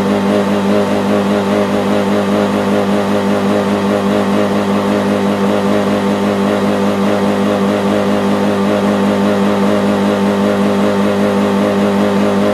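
Car engine held revved with the accelerator pressed down, running at a constant pitch with no rise or fall.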